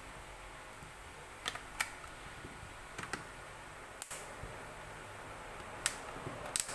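Light, scattered clicks and taps, about six over a few seconds, from small tools and parts being handled during a smartphone repair, over a faint steady hiss.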